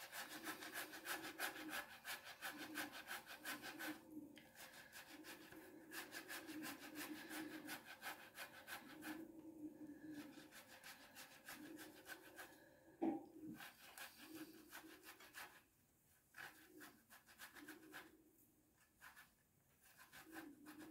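Cooked potato being grated on a metal box grater: faint, quick, even scraping strokes that stop briefly a few times. There is a single sharper knock about two-thirds of the way through, and the strokes thin out near the end.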